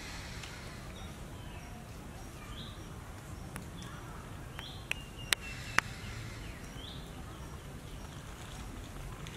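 Outdoor ambience with birds calling: short chirps that recur about every two seconds over a steady low background rumble. About five seconds in there is a brief held whistle with three sharp clicks, the last the loudest.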